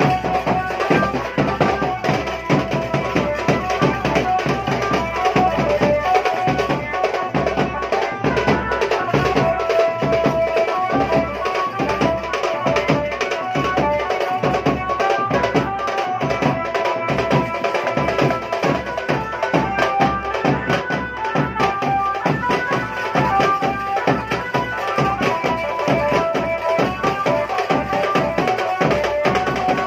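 Loud Indian folk dance music: fast, steady drumming with a melody line over it.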